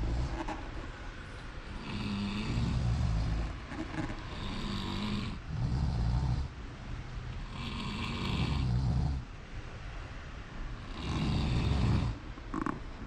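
Snoring: a run of deep, rough snores, one every couple of seconds, some with a hissing breath on top.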